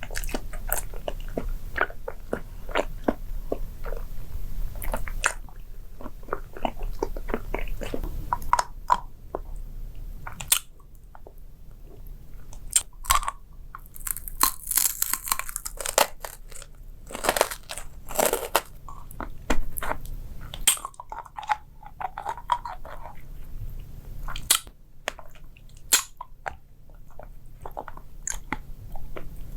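Close-miked eating sounds: crisp food being bitten and chewed, with many irregular sharp crunches and crackles.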